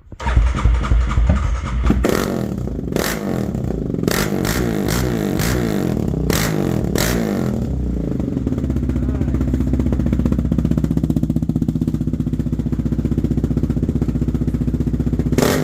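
2022 Yamaha Raptor 700R ATV's single-cylinder engine with an aftermarket exhaust fired up: it catches right away and runs unevenly with several sharp bursts in the first half, then settles to a steady idle.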